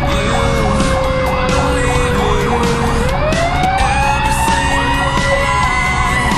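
Fire-rescue truck sirens heard from inside the cab while responding: one siren tone slides slowly down for about three seconds, then climbs back up, over a faster repeating siren sweep. The truck's engine and road rumble run underneath.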